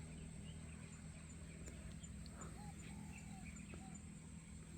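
Faint outdoor ambience: a steady low hum with a few short, faint bird chirps scattered through it.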